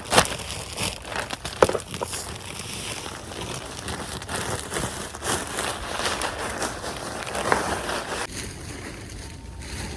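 Plastic bags of compost and potting soil rustling and crinkling with scattered knocks as they are handled and emptied into a raised garden bed. The sound drops off sharply about eight seconds in.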